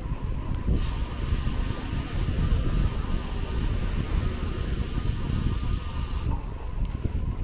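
Wind buffeting the microphone of a moving bicycle as a low, uneven rumble. A steady hiss joins it about a second in and cuts off sharply near the end.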